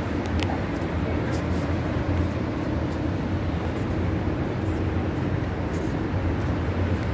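Steady low outdoor rumble with faint distant voices of passers-by.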